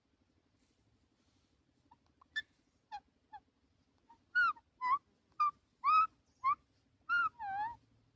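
A pet parrot giving a run of about a dozen short, sharp squawks. They start faint about two seconds in and get louder from about four seconds on. The last call is longer, with a dip and rise in pitch.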